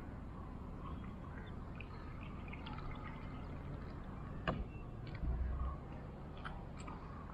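Faint small water sounds, light splashing and dripping, over a steady low hiss, with a sharp click about four and a half seconds in and a short low thump just after.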